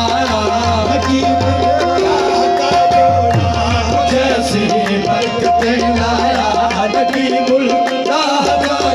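Loud devotional dance music with fast hand-drum beats under a held, steady note and a wavering melody.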